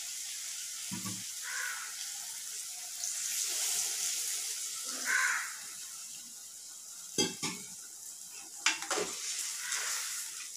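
Vegetables sizzling in spiced oil in a clay pot, a steady hiss that swells a few seconds in. Near the end a metal spoon stirring knocks against the pot several times.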